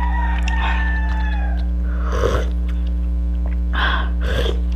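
Hot mussel broth being slurped from a spoon: a drawn-out, slightly whistly slurp at the start, then three short sips, over a steady electrical mains hum.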